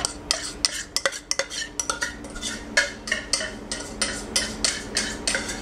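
A small gold fork clinking and scraping against a ceramic bowl as canned tuna is broken up and stirred: a quick, irregular run of light taps.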